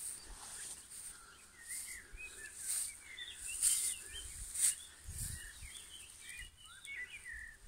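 Small birds chirping in short, quick calls, with soft rustling crunches about once a second from footsteps through cut dry grass.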